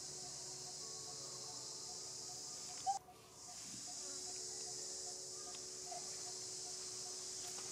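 A steady, high-pitched chorus of insects chirring in the background. About three seconds in it is broken by a short louder blip and drops out for about a second before it comes back.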